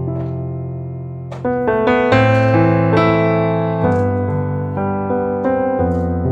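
Background piano music: slow, sustained notes and chords that fade between new strikes.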